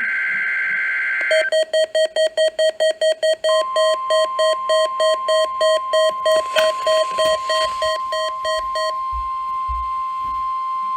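End of a NOAA Weather Radio EAS/SAME digital header, a screechy two-tone data burst. It gives way to rapid alarm beeping, about four beeps a second, and at about 3.5 s the steady 1050 Hz NOAA weather radio warning alarm tone comes on under the beeps. The beeping stops about 9 s in while the alarm tone continues, marking the start of a required weekly test.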